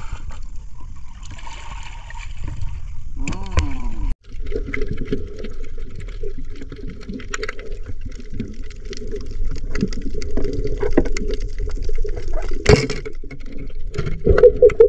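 Seawater sloshing around the legs of someone wading in the shallows. About four seconds in the sound cuts to muffled underwater noise from a camera below the surface, with many scattered crackling clicks and one sharp knock near the end.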